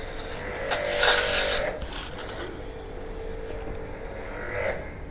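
Electric pressure washer running with a steady hum, with a burst of spray hiss lasting about a second when the gun's trigger is released; the hum falls away near the end.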